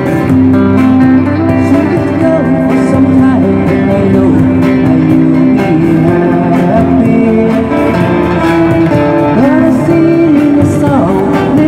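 Live band playing an oldies pop tune: two electric guitars over a drum kit, with a steady beat and some bent guitar notes.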